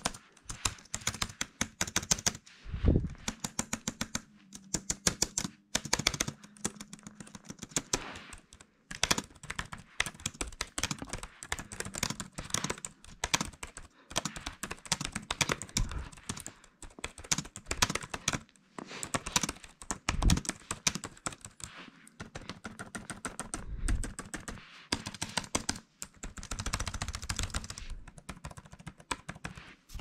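Typing on a Mobility Labs Mac-style membrane keyboard with low-profile keys: fast runs of light key clicks with short pauses between them, and now and then a deeper thud.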